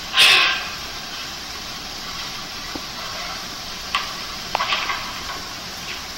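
Steady hiss from a laptop's speakers playing a cat video, with a short loud rush of noise about a quarter second in and a few faint clicks around four seconds in.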